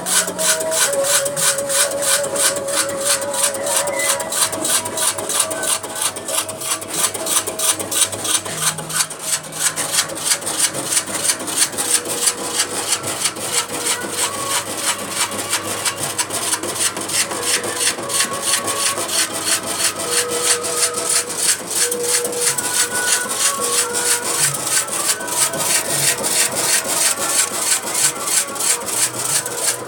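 Electric 150-watt chip-slicing machine running, its blade cutting in a fast, even rhythm of rasping strokes.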